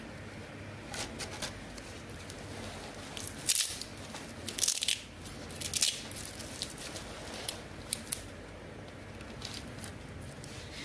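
Sisal scratching mat being handled around a wooden chair leg: a handful of short, sharp rasping rips as its black-bound edges are pulled open and pressed back, loudest from about three and a half to six seconds in, with a few quieter scrapes and clicks near one second and near eight seconds.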